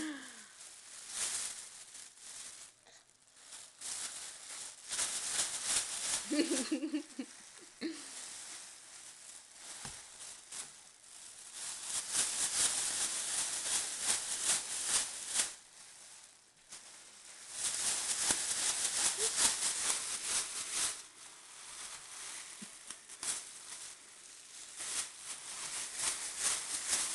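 Thin plastic shopping bags crinkling and rustling as a baby grabs, shakes and crumples them, in bursts of a few seconds with quieter gaps between. A brief vocal sound about six and a half seconds in.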